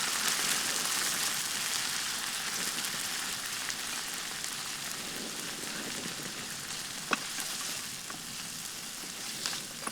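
Tomato and spice masala sizzling as it fries in a pan, a steady hiss that slowly fades, with a couple of short scrapes or clicks near the end.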